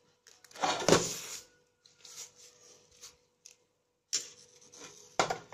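Chopsticks pushing and turning papaya leaves in a steel pot: leaves rustling and the sticks knocking against the pot, in several short bouts, the loudest about a second in.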